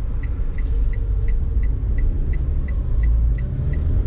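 Low road and engine rumble inside a moving car's cabin, with the turn-signal indicator ticking evenly about three times a second as the car merges onto the highway.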